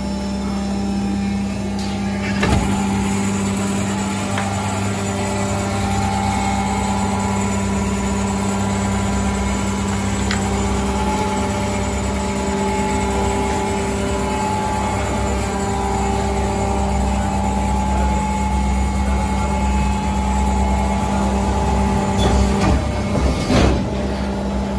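Industrial plastic injection moulding machines running: a steady machine hum with a strong constant low tone. There is a sharp click a couple of seconds in and a few knocks near the end.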